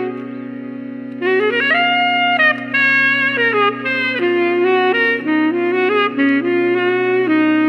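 Saxophone played through a CYN Special Plus pickup clipped to its neck: after a short pause, a phrase of quick, changing notes starts about a second in, over a steady low held drone.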